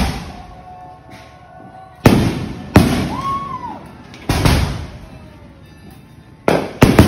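Aerial firework shells bursting: five sharp bangs, the first about two seconds in and the last two close together near the end, each trailing off in a rolling echo.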